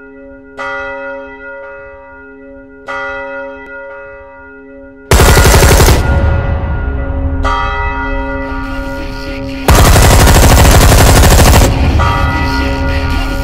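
Intro sound design: a deep bell tone struck twice, each strike ringing out, then from about five seconds in very loud, harsh, rapidly rattling bursts that cut in and out abruptly, with the bell ringing on between them.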